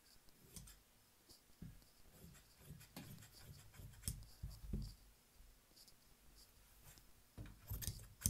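Large tailor's shears snipping through embroidered dress fabric: faint irregular blade clicks and cloth scraping on the cutting table, with a louder knock near the end.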